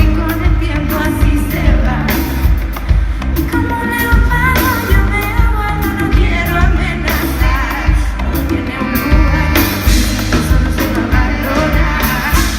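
Live pop song played by a band with a female lead vocal, strong bass and a steady drum beat.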